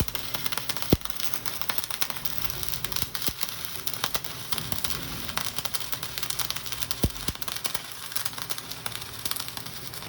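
Flux-cored wire welding arc crackling steadily as a vertical-up bead is run on a T-joint, with a couple of sharper pops. The arc cuts off abruptly near the end as the trigger is released.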